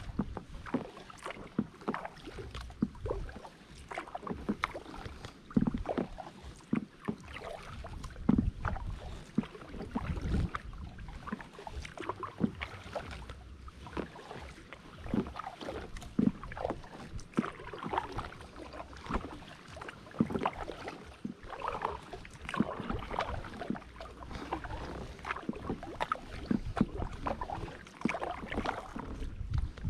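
Kayak paddle strokes: the blades dipping into and pulling through the water, splashing and dripping in an uneven rhythm of about one to two strokes a second, with small knocks among them.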